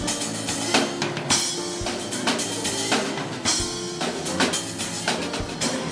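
Live band playing: a drum kit keeps a steady beat of bass drum and snare, with electric bass and acoustic guitar underneath.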